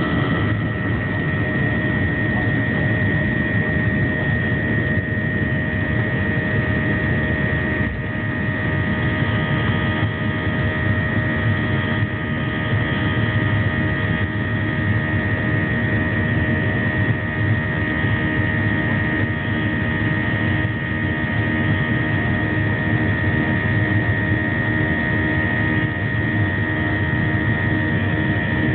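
Airliner's jet engines running at takeoff and climb power, heard from inside the cabin: a steady rushing noise with a steady high whine.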